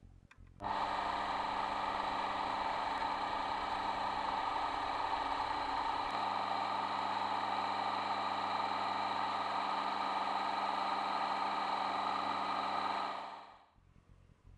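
Mini lathe running under a semi-finishing cut on a metal bar with a DCGT070204-AK carbide insert: a steady whine of motor and gears. It starts abruptly about half a second in and dies away about a second before the end.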